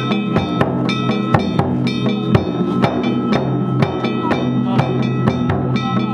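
Danjiri festival float music (narimono): a taiko drum and ringing metal hand gongs (kane) beaten together in a steady rhythm, about two strong beats a second.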